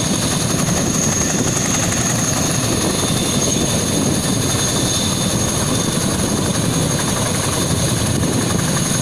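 Tandem-rotor Chinook helicopter running on the ground with both rotors turning: steady rotor noise under a high, steady turbine whine.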